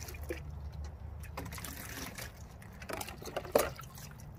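Water poured from a plastic scoop over a dog's back in a plastic kiddie pool, trickling and splashing. A single sharp knock about three and a half seconds in.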